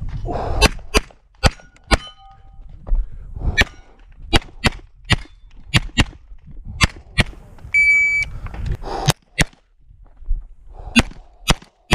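Semi-automatic pistol fired rapidly during an IPSC practical-shooting stage: shots mostly in quick pairs about a third of a second apart, with pauses of a second or two between strings as the shooter moves between positions.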